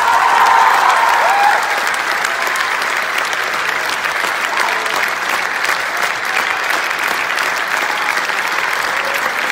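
Audience applauding steadily and densely.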